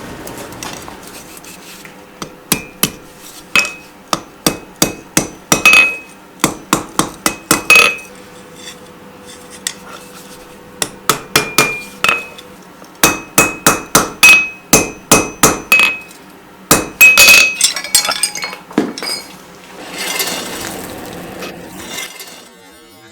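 Hand hammer blows on hot iron bar stock over an anvil, about two a second in runs with short pauses, each blow ringing. The runs come from hand-forging a small brooch from thin square bar, and there is a short rough noise near the end.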